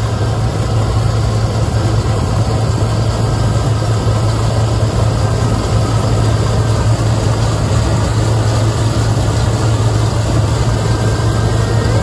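New Holland CR combine harvester running steadily under load as it picks up and threshes windrowed barley: a loud, even engine drone with a strong low hum and the rushing noise of the threshing machinery.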